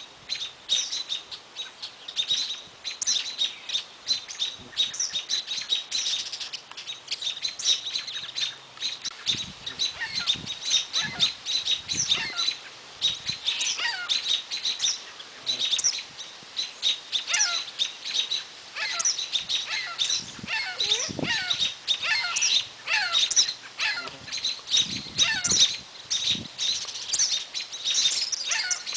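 Songbirds chirping and calling over and over, a dense chorus of short, high notes, many of them falling in pitch.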